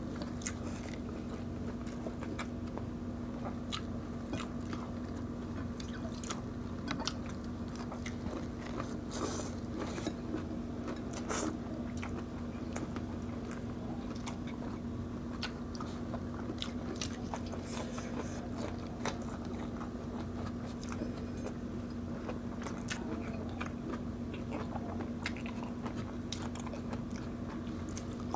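Close-miked eating: biting and chewing food, with scattered small crunches and wet clicks, over a steady low hum.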